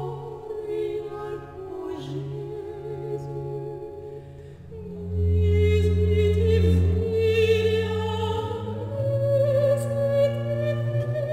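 Women's high voices singing a French Baroque petit motet over a basso continuo of viola da gamba, theorbo and positive organ, with held bass notes under the sung line. The music grows louder about five seconds in.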